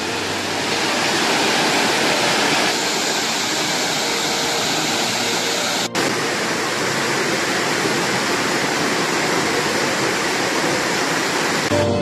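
Prut Waterfalls pouring down a high rock face: a steady rush of falling water, with a fair flow. The sound drops out for an instant about halfway through.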